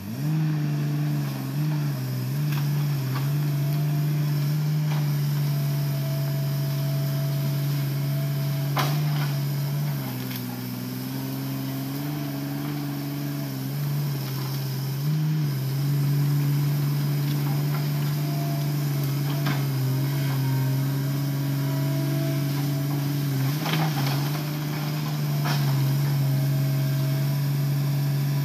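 Hitachi Zaxis hydraulic excavator's diesel engine running steadily, its note dropping for a few seconds about ten seconds in, with a few sharp knocks.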